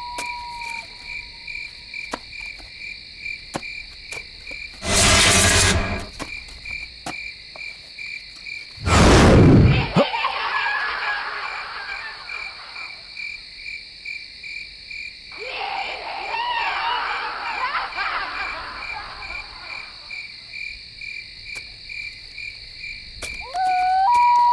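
Night-time crickets and insects chirping steadily in a pulsing rhythm. The chirping is broken twice by loud, sudden whooshing sound effects, about five and nine seconds in, the second dropping away in pitch, and is followed by eerie rustling textures. A short hooting call sounds at the start and again near the end.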